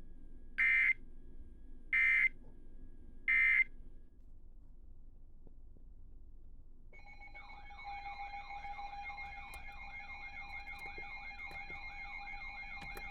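Three short bursts of Emergency Alert System data tones, evenly spaced about a second and a half apart: the end-of-message signal closing the previous warning. About seven seconds in, a siren-like electronic alert tone starts and keeps warbling rapidly over steady tones.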